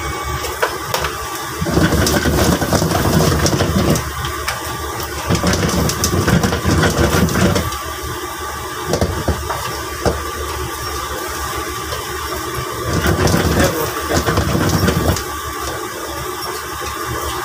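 Steady roar of a commercial kitchen's gas wok range, with three louder stretches of a couple of seconds each as crab in sauce is stirred and sizzles in the wok.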